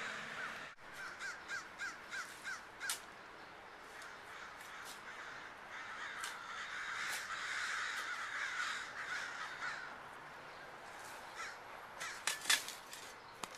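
A bird calling outdoors: a quick run of short repeated calls about a second in, then more scattered calling, with a few sharp knocks, the loudest near the end.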